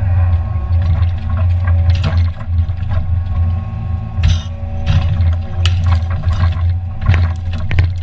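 New Holland mini excavator's diesel engine running steadily with a hydraulic whine as the timber grab moves and grips cut logs and brush, with several sharp cracks and knocks of wood, the heaviest about four seconds in and a cluster near the end.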